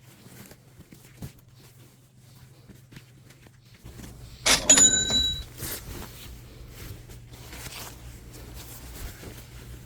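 Rummaging and handling noises with scattered small clicks. About four and a half seconds in comes one sharp metallic clink that rings briefly, followed by a few smaller knocks. A low steady hum starts just before the clink.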